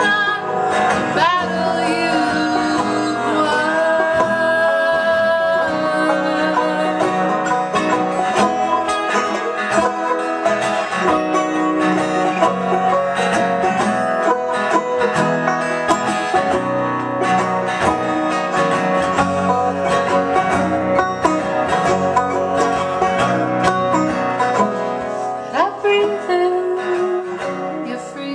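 A live trio performing a song, with quick plucked-string picking and closely spaced notes.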